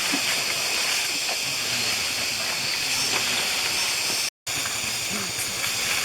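A steady hiss, with faint voices under it; the sound cuts out completely for a moment about four seconds in.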